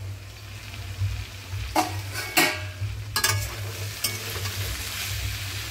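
Two clanks as the metal lid comes off an aluminium kadai, then potato and green tomato pieces sizzling while a metal spatula stirs and scrapes them against the pan.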